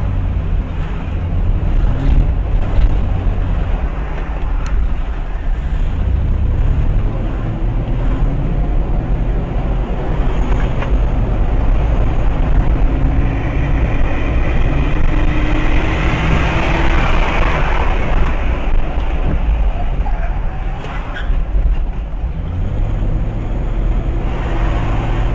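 Car driving on a road: steady low rumble of engine and tyres, with a louder rushing hiss swelling for a few seconds past the middle.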